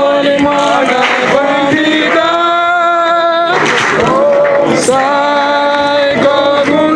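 Singing: a song with long held notes that glide from one pitch to the next.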